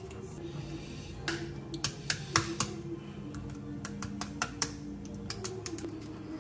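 A metal spoon tapping the shell of a boiled balut duck egg to crack it: an irregular run of sharp little clicks, loudest a couple of seconds in. Background music plays underneath.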